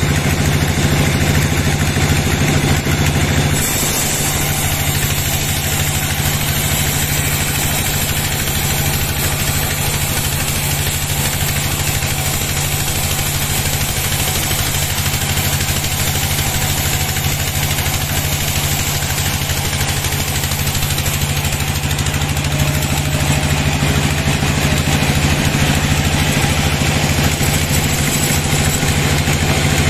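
Sawmill bandsaw running with its blade ripping lengthwise through a teak log: a loud, steady machine hum with the hiss of the cut above it.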